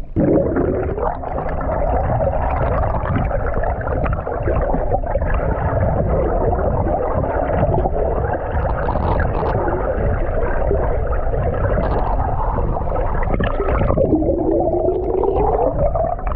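River water heard through a camera's microphone held underwater: a loud, muffled, continuous gurgling rumble with wavering pitch glides and a rising tone near the end.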